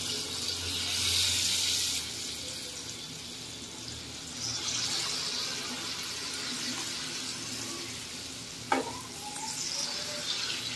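Wheat-flour and jaggery batter sizzling in hot oil in an iron kadhai, the sizzle swelling as each fresh spoonful goes in, near the start, about halfway and near the end. A single sharp knock about nine seconds in.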